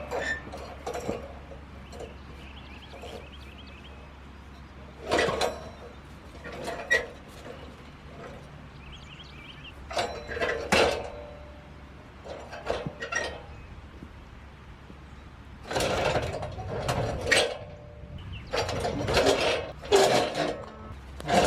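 Steel sawmill track sections being handled and set back in place: irregular metal clanks, knocks and clinks, coming thicker in the last third, over a steady low hum.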